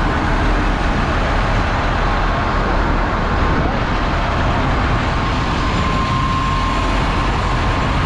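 Several large farm tractors' diesel engines idling together, steady throughout.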